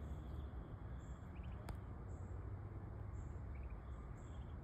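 Faint outdoor background with a low rumble, a few soft, short, high-pitched peeps from young Muscovy ducklings, and a single sharp click a little under two seconds in.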